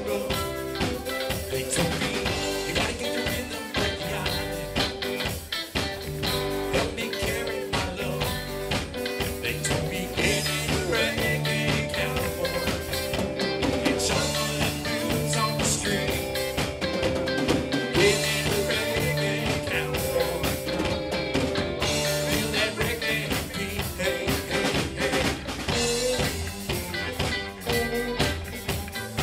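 Live rock-and-roll band playing: two electric guitars, bass guitar and drum kit, with a steady beat.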